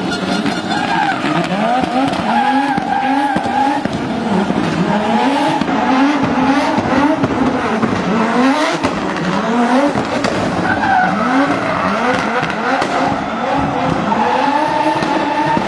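Audi Sport Quattro S1 rally car's turbocharged five-cylinder engine revving hard, the revs sweeping up and falling back again and again in quick succession as it is thrown through tight turns, with tyres squealing at times.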